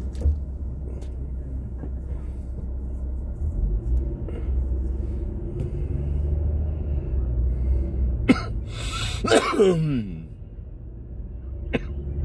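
Steady low rumble of the car's interior while driving. A little past eight seconds in comes a loud burst of hay-fever sneezing and coughing, about a second long, ending in a voiced sound that falls in pitch.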